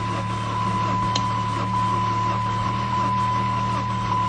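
Old Saturn's double-overhead-cam four-cylinder turning over on the starter in hard cold without catching: a steady low drone with a thin high whine. The compression doesn't sound right to the owner.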